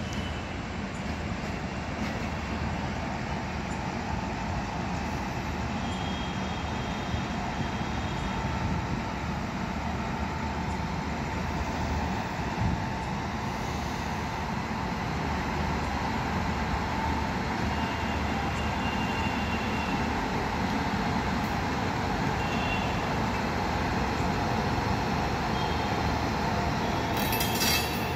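Indian Railways electric locomotive running slowly past, a steady hum and whir that grows slightly louder as it draws closer. A brief hiss sounds just before the end.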